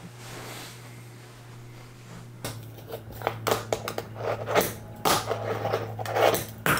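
Fingerboard (miniature finger skateboard) clacking and rolling on a desk: a run of irregular clicks and short scrapes starting about two and a half seconds in, after a faint quiet hiss.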